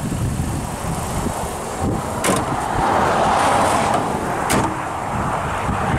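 The hood of a PT Cruiser is being shut: two sharp knocks about two seconds apart as it is lowered and pressed down to latch. Behind them is a steady roadside rumble that swells in the middle.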